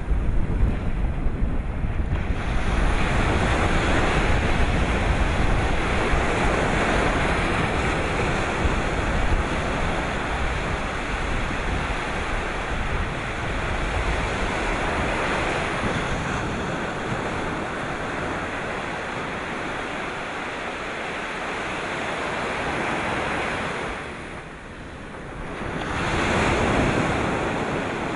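Sea surf washing and breaking in slow swells, with wind buffeting the microphone, heaviest in the first couple of seconds. The wash dies down briefly near the end, then a fresh wave builds again.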